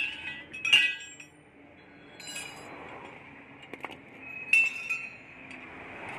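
Steel wrench clinking against the nut and bolt of a truck's front leaf spring mounting: a few sharp metallic clinks with short ringing, the loudest about a second in and again about four and a half seconds in.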